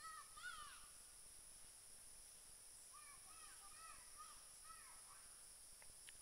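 A bird calling faintly in short rising-and-falling notes, a quick cluster at the start and a run of about six near the middle, over a steady high drone of insects.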